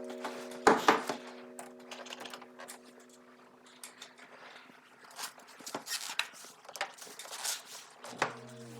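Scattered knocks and clicks of hand work and tool handling, two louder knocks about a second in, as sustained background music notes fade away; music comes back near the end.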